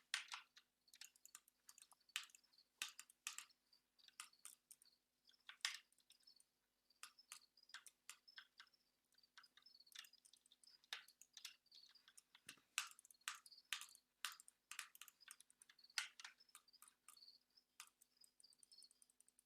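Faint, irregular clicking of computer keyboard keys and mouse buttons, single clicks and quick clusters.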